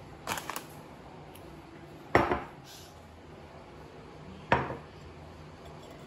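Plate set down on a wooden table and an ice bar laid on it: a few light clicks, then two sharp clatters about two and a half seconds apart, each ringing briefly.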